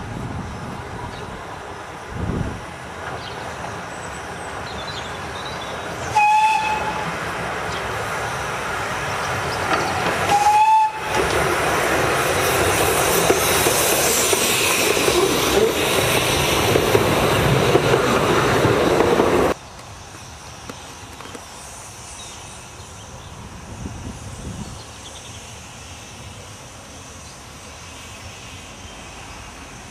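Narrow-gauge steam train giving two short whistle toots as it comes up the line, then running loudly close past with its carriages. The sound drops abruptly about two-thirds of the way through to quieter, distant train running.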